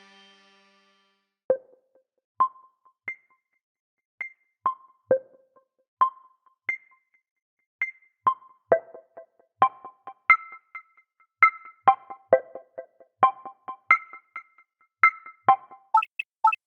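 A Google Pixel (2016) stock tone: a sparse electronic melody of short plucked, keyboard-like notes. It starts about a second and a half in, with single notes at first, then grows quicker and fuller, with two or three notes at a time, toward the end.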